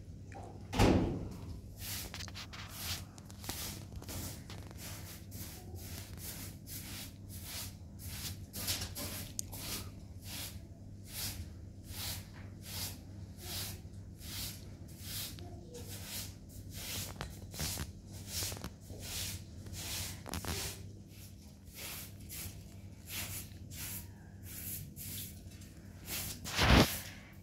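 Short straw hand broom sweeping a carpet: quick repeated swishes, a little over two a second, over a faint steady low hum. A loud thump about a second in and another near the end.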